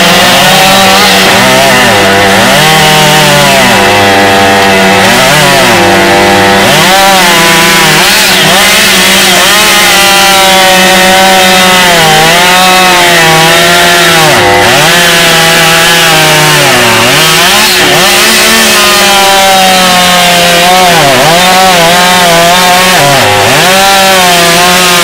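Chainsaws running flat out while cutting wood. One engine holds a steady high pitch, while another repeatedly dips in pitch and climbs back as it bogs down under load in the cut.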